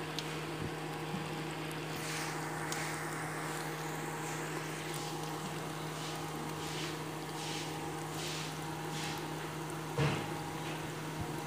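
Gulab jamun dough balls deep-frying in hot oil in a steel pan: a steady sizzle of bubbling oil over a steady low hum, with a short knock about ten seconds in.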